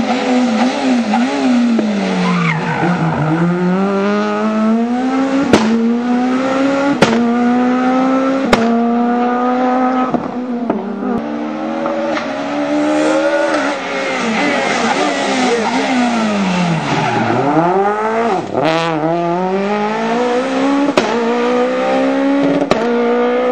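Rally cars driven flat out. The engines climb in pitch and drop at each quick gear change, and fall away in pitch twice as cars pass close by. The first car is a Renault Clio S1600 with a high-revving 1.6-litre four-cylinder engine, and a few sharp cracks cut through.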